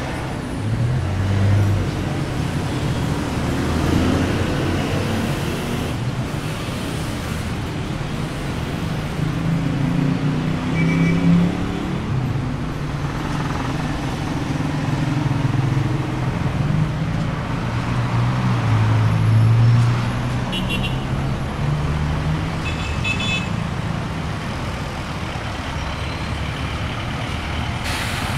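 Road traffic: motor vehicles passing close by, their engines rumbling, louder and softer as they come and go. Short high beeps sound a couple of times about two-thirds of the way in.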